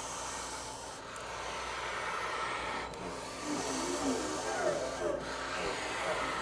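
Accordion bellows worked without sounding notes, giving a breathy rush of air. About halfway through, thin wavering tones come in over the air noise.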